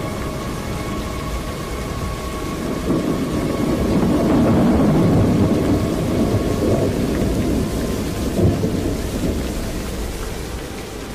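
Thunderstorm: steady rain with a long low roll of thunder that builds a few seconds in, peaks in the middle and dies away, with a short sharper crack near the end of the rumble.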